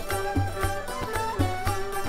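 Traditional folk music with plucked string melody and a steady low drum beat, about three to four beats a second.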